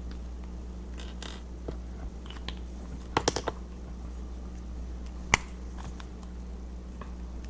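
Small handling sounds of a tape-covered plastic-bag squishy and a marker: scattered light clicks and scratches, a quick cluster of sharp clicks about three seconds in and one sharp click a little after five, over a steady low hum.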